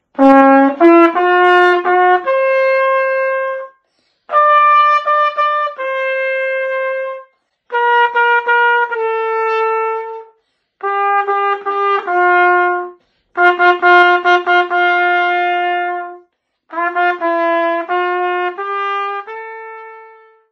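Trumpet played solo: a slow melody in six phrases of held notes, each phrase a few notes long, with short pauses between phrases. The last note fades out near the end.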